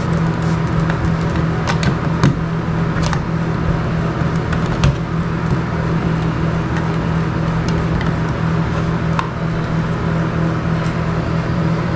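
Scattered sharp metal clicks of a flathead screwdriver working the screws of a light switch and wall plate, over a loud, steady low hum.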